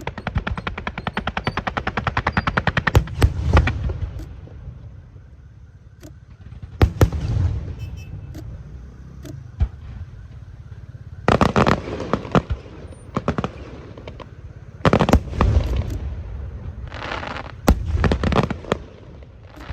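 Fireworks going off: a rapid train of sharp bangs for the first three or four seconds, then clusters of bangs and low booms every few seconds.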